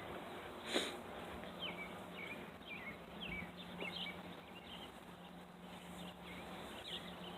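Faint outdoor ambience with a bird calling in short, falling chirps, repeated several times, and a single click about a second in.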